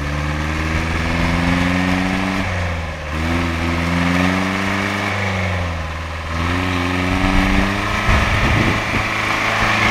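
Old Land Rover Series-style 4x4's engine pulling under load as it crawls up a muddy forest track. The revs rise and fall, ease off briefly about three seconds in and again about six seconds in, then climb again. A rougher rumble comes in near the end.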